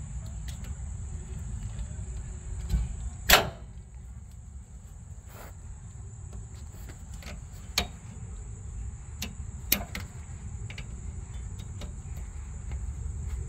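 Scattered sharp clicks and knocks, the loudest about three seconds in, as the rear camber arm and the suspension parts around it are handled by hand, over a steady high-pitched whine and a low rumble.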